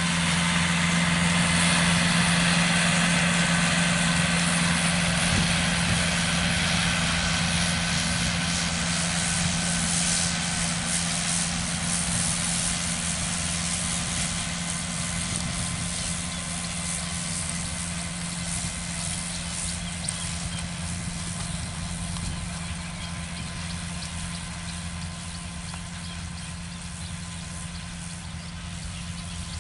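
Kubota farm tractor's diesel engine running steadily while pulling a disc implement through the soil, a constant low hum that slowly fades as the tractor moves away.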